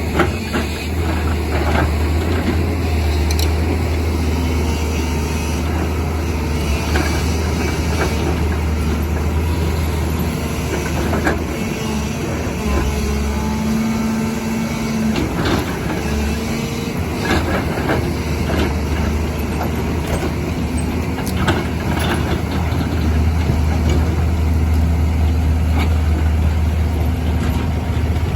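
Excavator diesel engine running steadily under load, its low hum easing for a few seconds midway, with scattered knocks and clanks.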